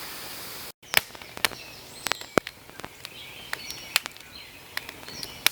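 Campfire crackling with irregular sharp pops and snaps, some much louder than others, after a steady hiss that cuts off just under a second in. Faint high chirps sound in the background.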